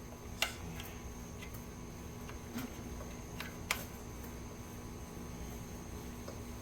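Light metal clicks and taps of a hex key or driver bit working the housing screws of a backpack leaf blower, a few scattered ticks over a faint steady hum.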